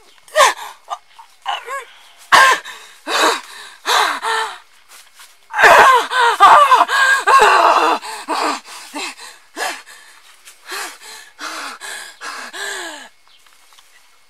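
A woman's wordless vocalizing: a run of short cries and breaths that slide in pitch, rising to a long loud cry about six to eight seconds in, then shorter, quieter cries.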